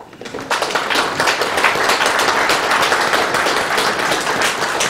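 Audience applauding: many people clapping together, starting about half a second in and going on steadily.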